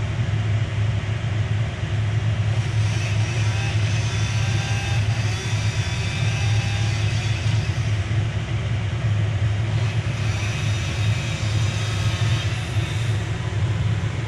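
An engine running at a steady speed, a constant low drone with no change in pitch.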